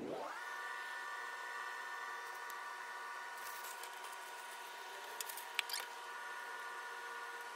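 A steady, high-pitched machine-like whine made of several tones together, which sweeps up in pitch over the first half second and then holds. A few sharp clicks come about five seconds in.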